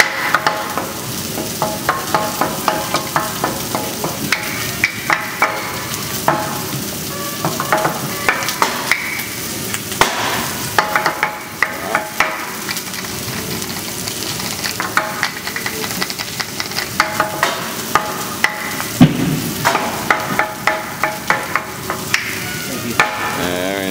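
Food sizzling on a hot teppanyaki griddle, overlaid by many sharp clacks in irregular clusters as two wooden pepper mills are spun, knocked together and tapped during a pepper-mill juggling routine.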